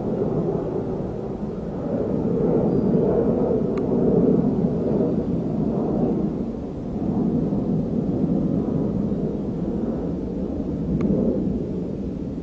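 Rumbling noise on the camera's microphone that swells and fades in waves, with a few faint clicks.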